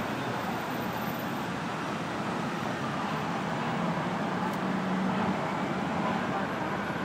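Steady city traffic noise of cars and a bus running around a busy traffic circle, with a low engine hum that swells for a moment around the middle.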